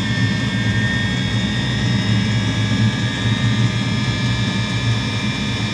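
Eberspacher D9W diesel water heater running just after lighting: a steady combustion roar with the whine of its combustion-air fan, the whine drifting very slightly lower.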